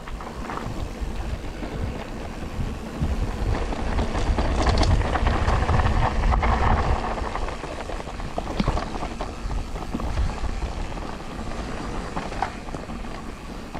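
Mountain bike riding along a rough dirt trail: a steady rumble of tyres and wind noise, louder about four to seven seconds in, with a few sharp knocks.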